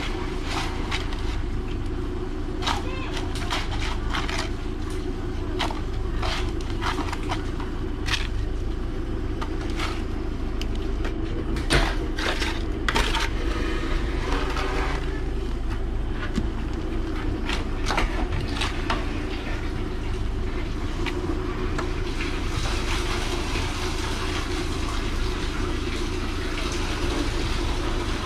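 Septic vacuum truck's engine and suction pump running with a steady low drone while it sucks out a septic tank. Irregular sharp clicks and knocks come through it, and a hiss rises over the last several seconds.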